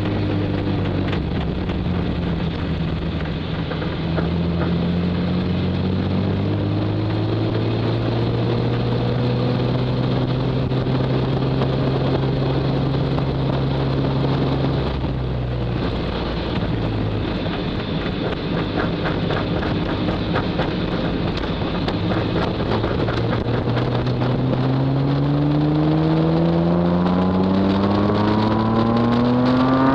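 Nissan RB25DE naturally aspirated 2.5-litre straight-six in an R32 Skyline running at low revs. The note rises slowly, drops about halfway through, then revs up steadily over the last few seconds as the car accelerates. Wind noise on the externally mounted microphone.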